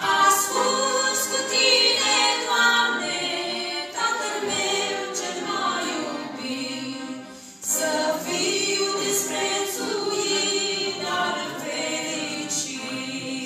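Two women singing a Romanian Christian song together into microphones, with a short breath between phrases about seven and a half seconds in.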